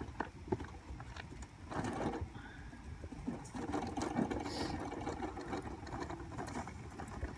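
Powdered concrete colour pigment pouring from a bag into a plastic bucket on a dial scale: a grainy, rattly hiss with scattered small clicks, heaviest in the second half.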